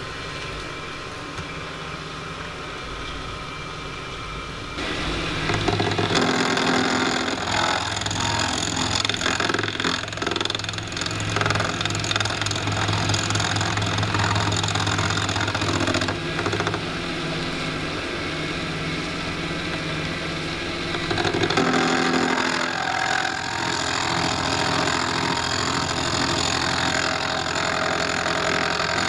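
Motor of a home-built mini metal lathe running steadily. Its sound steps up and grows louder about five seconds in, then shifts again around twenty seconds in.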